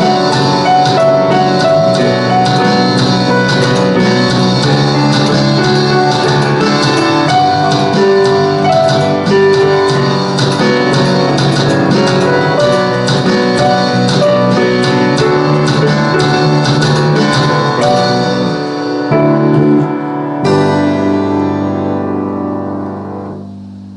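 Piano, bass and drum kit playing an instrumental arrangement of a rock song. The drums drop out near the end, and a final chord is struck and fades out.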